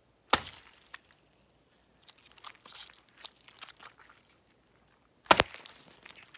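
Halved oranges crushed and squeezed by hand as a Foley gore effect: two sharp wet smacks about five seconds apart, with squelching and crackling of juicy pulp in between.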